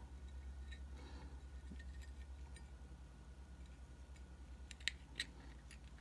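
Faint handling of a Zippo lighter's metal insert as cotton is worked in around the wick, giving a few small sharp clicks, most of them about five seconds in, over a low steady hum.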